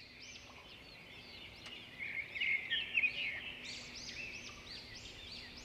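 Wild birds singing and chirping: many short, quick, high notes overlapping, growing livelier from about two seconds in.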